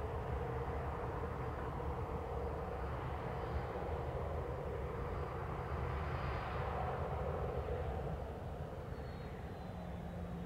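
Boeing 737-800's CFM56 turbofan engines running at low thrust as the jet taxis, a steady jet rumble with a held hum, swelling a little about six seconds in.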